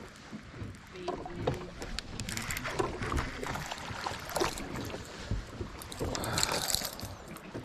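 Small fishing boat on the water: irregular knocks on the hull and bursts of water splashing against it, with no steady motor note.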